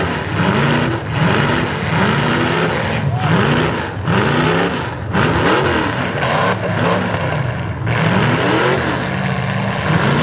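Demolition-derby truck engines revving up and falling back again and again, roughly once a second, over a constant rough hiss of noise.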